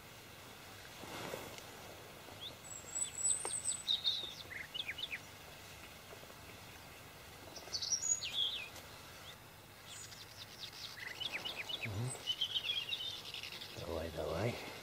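Small birds chirping and calling, in scattered short bursts of high chirps and quick trills, over a faint outdoor hiss. A soft, low sound comes near the end.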